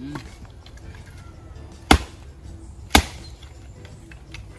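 Dry firewood being smashed down onto a rock to break it up, giving two sharp cracks about a second apart.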